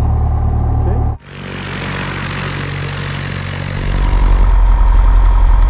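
Cessna 172's four-cylinder piston engine and propeller running. About a second in, the sound changes abruptly from a steady drone heard inside the cabin to the plane heard from outside, which grows louder near the end.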